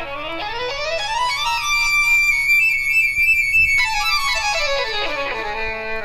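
Geo Synthesizer app on an iPhone playing a sustained, bowed-sounding lead melody with pitch slides: it climbs to a long high note, drops suddenly about two-thirds in, then glides down to a low note near the end.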